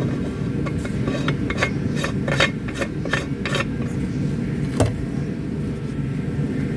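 Mounting collar being fitted onto a PTZ camera arm: a quick run of clicks and scrapes for about three seconds, then one sharp click, over a steady low hum.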